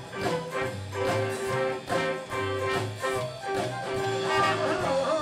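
Live rhythm-and-blues band playing an instrumental stretch between sung lines: a repeating bass line, drums on a steady beat and held chords over them.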